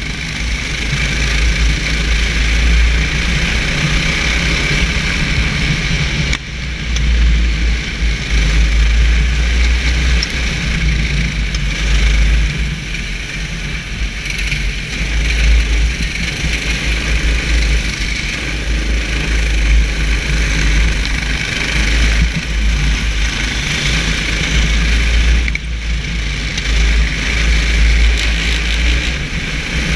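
Racing kart engine running hard on track, its note rising and falling through the corners and dipping briefly twice as the throttle is lifted, with wind buffeting the onboard camera's microphone.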